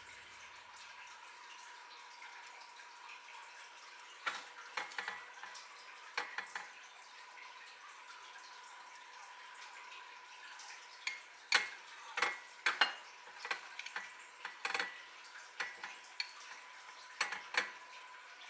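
Kitchen utensils clinking against dishes in scattered, short, ringing strikes, a few at first and then a denser run in the second half, over a faint steady hiss and hum.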